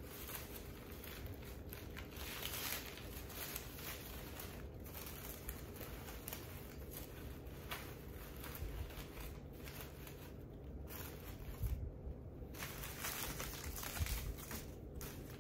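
Wrapping material crinkling and rustling as it is handled, in uneven bursts, with a couple of soft knocks near the end.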